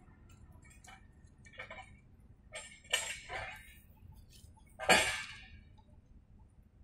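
A few sharp metallic clanks and clinks of railway equipment over a low steady background, the loudest about five seconds in, each ringing on briefly.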